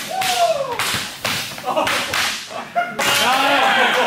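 Jiu-jitsu belts lashing a bare back in a gauntlet: a run of sharp cracks, one after another. Men in the room whoop and yell over them, loudest near the end.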